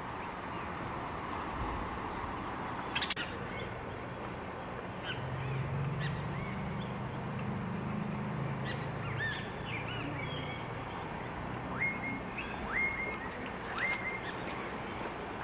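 Birds chirping and calling in short, repeated notes over steady outdoor background noise, with a low hum in the middle and one sharp click about three seconds in.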